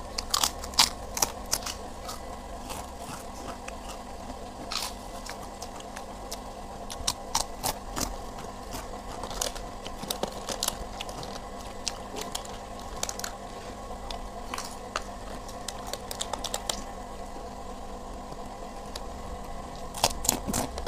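Eating a boxed rice meal by hand: irregular small crackles, clicks and rustles from the cardboard box, plastic wrappers and crunchy krupuk crackers, over a steady low hum.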